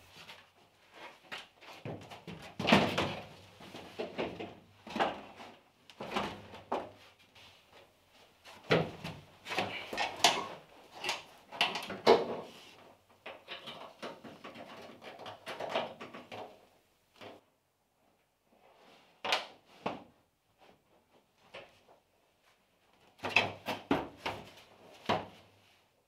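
Irregular clunks, knocks and rattles of metal seat brackets and a car's rear seat being handled and fitted against the bare-metal floor of the car body, with a couple of short pauses.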